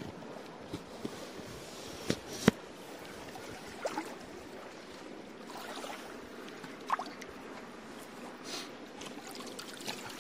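Shallow river water trickling and lapping around legs and a gill net as small fish are shaken and picked out of the net by hand. A few short sharp clicks break through, the loudest about two and a half seconds in.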